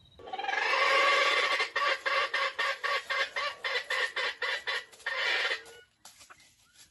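Junglefowl rooster calling: a drawn-out call, then a fast run of clucks, about five a second, ending in a short drawn note.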